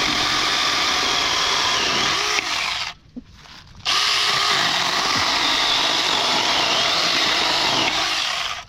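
Saker 4-inch cordless electric mini chainsaw running and cutting through wood, a steady whine in two long runs with a pause of about a second about three seconds in.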